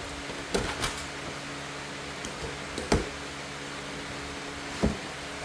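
A cardboard box being handled and opened: a few short thumps and knocks over a steady background hum.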